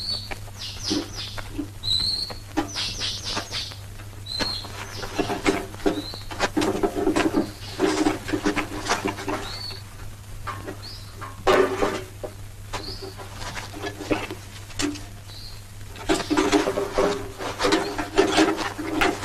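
Small birds chirping over and over in short rising calls, over bursts of clattering and rustling as cartridges and rifle parts are packed into metal drums. A low steady hum runs underneath.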